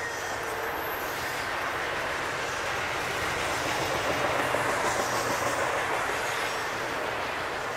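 Double-stack intermodal freight train's well cars rolling past: a steady rumble and clatter of steel wheels on the rails, getting a little louder about halfway through.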